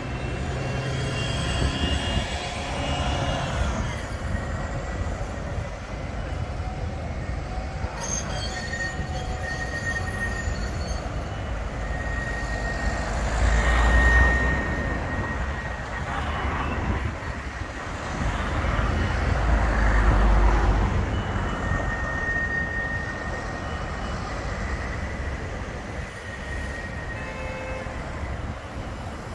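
Bombardier Flexity 2 tram's wheels squealing on curved street track: a thin, high, steady squeal that comes and goes, with a falling squeal near the start. Road traffic passes close by, swelling twice as a low rumble.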